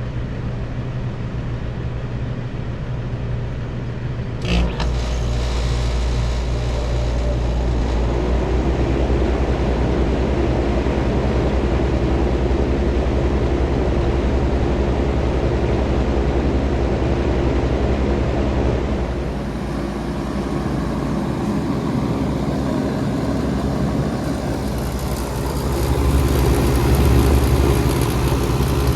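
2016 Bard wall-mount heat pump starting up in heat mode: a low hum, then a sharp click about four and a half seconds in, after which a deeper, stronger hum sets in as the unit starts running. It runs steadily, getting louder near the end.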